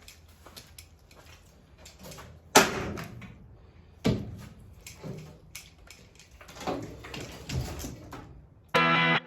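Scattered clicks and knocks of things being handled, the loudest knock about two and a half seconds in and another about four seconds in; rock music starts near the end.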